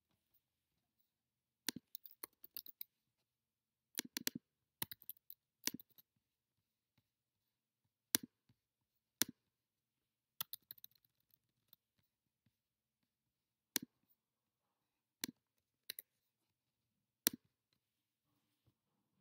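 Computer mouse clicking: quick runs of clicks a few seconds in and again about ten seconds in, then single clicks a second or more apart.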